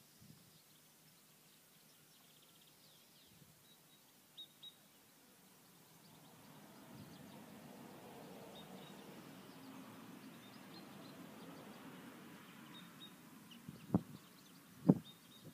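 Quiet garden ambience with faint bird chirps and a low rushing noise that swells in the middle. Near the end come two sharp knocks about a second apart, the loudest sounds.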